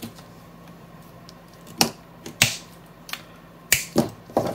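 Small electronic parts and wires being handled on a workbench, giving about six sharp clicks and snaps from about two seconds in.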